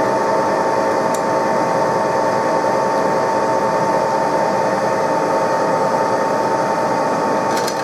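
TOS SN63B lathe running at a steady speed, its drive giving a steady whine with one strong tone over a mechanical hum.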